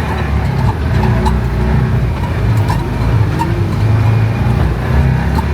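Jeep engine running steadily as it drives over a bumpy off-road trail, with scattered knocks and rattles from the bumps.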